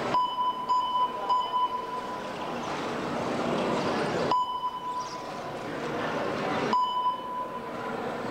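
Electronic beeps on one steady pitch: a long beep of about two seconds with a brief break partway through, then two shorter beeps a little over two seconds apart, over a steady background hum.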